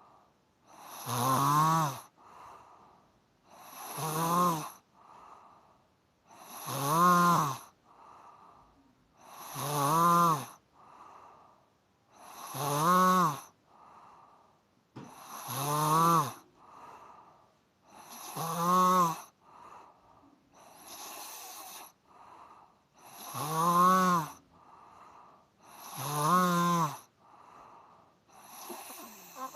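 A person snoring in a steady rhythm: a loud, pitched snore about every three seconds, with a quieter breath between. One snore a little past the middle is softer than the rest.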